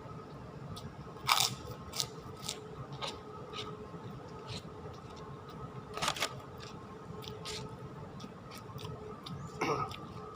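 Close-up eating sounds of a mouthful of ketoprak: chewing with crisp crunches and clicks, the loudest about a second in, around six seconds in and near the end. A faint steady hum runs underneath.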